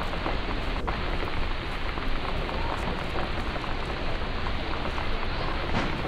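Rain falling steadily, an even hiss of drops on a hard surface.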